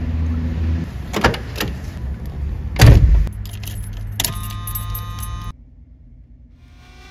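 Keys jangling and clicking in the steering-column ignition of a 1979 Camaro Z28, over the low rumble of the car. A loud thump comes about three seconds in, then a steady hum that cuts off suddenly about five and a half seconds in.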